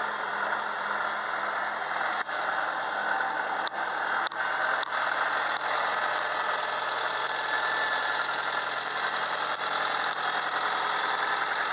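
Old Komatsu hydraulic excavator's diesel engine running at a steady speed, with a few sharp clicks in the first half.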